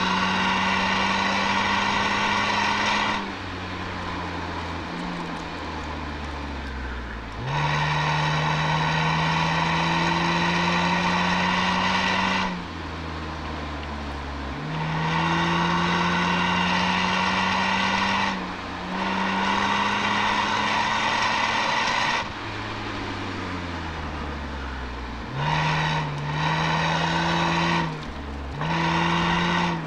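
Toyota Altezza's 1G-FE inline-six through an Apexi aftermarket exhaust, heard at the rear bumper, pulling under throttle about six times. Each time the note climbs slowly, then drops away quieter with falling pitch as the throttle is lifted.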